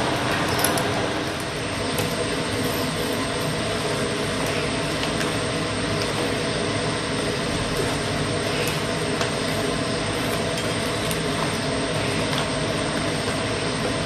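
A steady mechanical rumble with a constant multi-tone drone, unchanging throughout.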